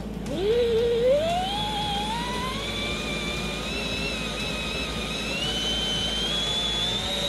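Air-driven motor of a fiber optic cable jetting machine whining as its throttle is opened. The pitch climbs quickly over the first couple of seconds and then keeps rising slowly as the motor speeds up to drive the cable belts.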